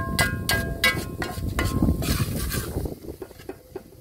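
Metal spatula clanking and scraping against the side of a large aluminium cooking pot, several ringing clanks in the first two seconds. A low rumble underneath stops about three seconds in.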